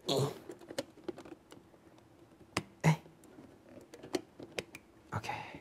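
Scattered light clicks and taps of small objects being handled by hand, with a short breathy vocal sound at the start and another near the end.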